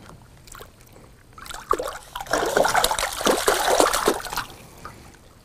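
Water splashing and sloshing, starting about one and a half seconds in and lasting about three seconds, as a freshly caught rainbow trout thrashes while being unhooked.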